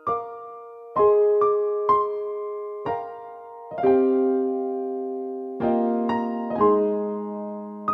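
Slow piano music: single notes and chords struck every half second to two seconds, each ringing on and fading.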